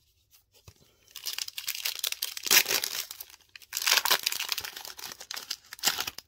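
Foil wrapper of a Panini Fortnite trading-card pack being torn open and crinkled by hand. It starts about a second in and crackles in uneven spurts, with several loud rips.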